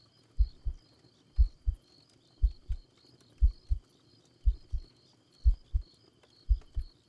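A slow, regular heartbeat, each beat a soft lub-dub pair of low thumps about once a second, with crickets chirping faintly and steadily behind it.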